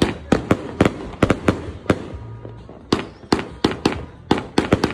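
A 98-shot firework cake firing shot after shot, sharp reports about four to five a second, with a pause of about a second just after two seconds in.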